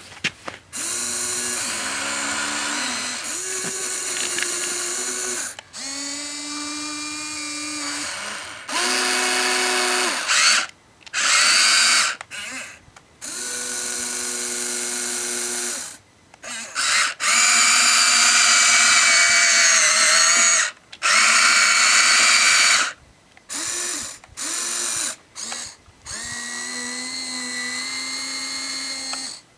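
Small electric gear motors of a Huina 1593 RC excavator whining in repeated start-stop bursts as the boom, arm, bucket and tracks are worked. Each burst holds its own steady pitch, and short pauses fall between them.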